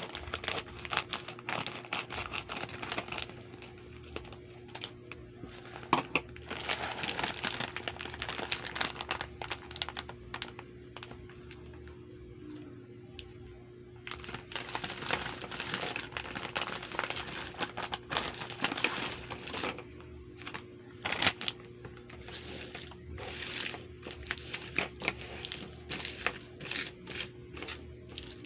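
Sugus chewy candy wrappers being handled and unwrapped close to the microphone: crinkling and crackling in bouts of a few seconds with quieter pauses between, over a faint steady hum.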